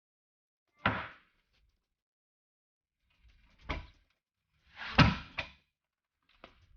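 A car door being worked: a clunk about a second in, another near four seconds, and the loudest, a slam followed by a quick second knock, about five seconds in.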